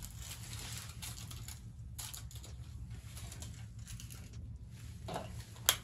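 Faint rustling and small clicks of foil and hand tools being handled over a steady low hum, with one sharp click near the end.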